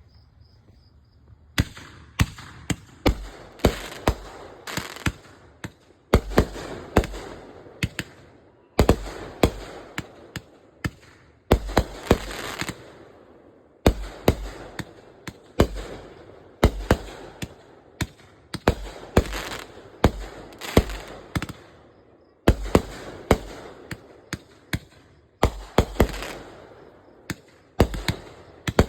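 Fireworks display going off: volleys of sharp bangs in quick succession with crackling between them, broken by brief lulls every few seconds, starting about a second and a half in.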